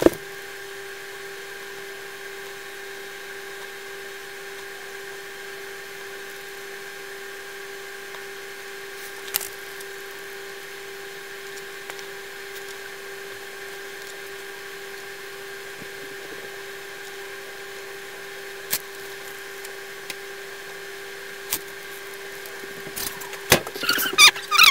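Steady electrical whine, with a few sharp small clicks of metal tweezers handling tiny SMD components on a circuit board, becoming a quick cluster of clicks and taps near the end.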